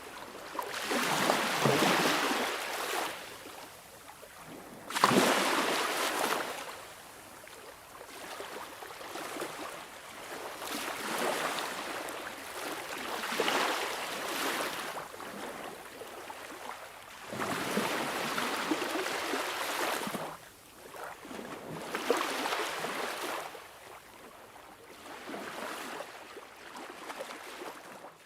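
Sea waves washing in and drawing back, one surge after another every few seconds, the strongest about five seconds in.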